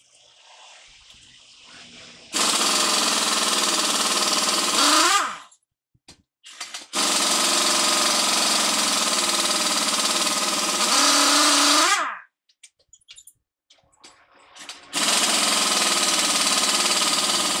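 Pneumatic impact wrench running in three long bursts on the bolts of a truck wheel hub, each burst ending with a quick sweep in pitch as the trigger is let go.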